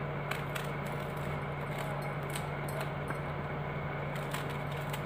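Kitchen knife slicing a hand-held bitter gourd into rounds: a run of irregular crisp cutting clicks, a few a second, over a steady low hum.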